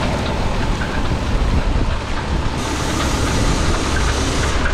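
Loud, steady noise of typhoon wind and rushing water, with wind buffeting the microphone in a deep rumble; the hiss grows brighter about halfway through.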